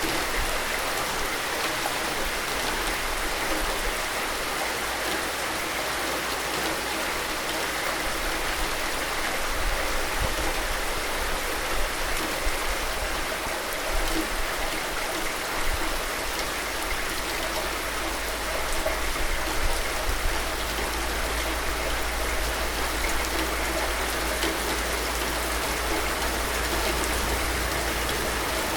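Steady rain: an even hiss of falling water with scattered louder drops.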